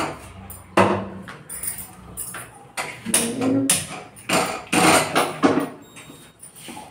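Metal kitchenware knocking and clinking: an aluminium pressure cooker and its lid handled on a gas stove, a string of sharp knocks with denser clattering in the middle.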